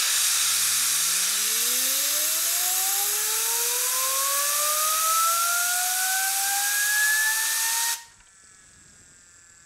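A loud, steady hiss of blown compressed air drives a hand-held aluminium and brass fidget spinner up to high speed, and the spinner's whine rises steadily in pitch. About eight seconds in the air cuts off suddenly, and a faint whine slowly falls in pitch as the spinner coasts.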